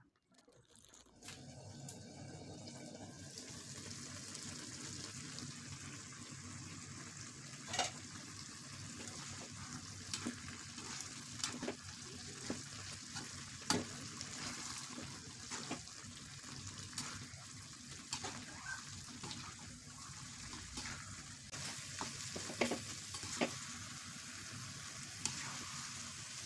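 Food sizzling as it fries in a pan, starting about a second and a half in, with a spatula now and then clicking and scraping against the pan as it is stirred.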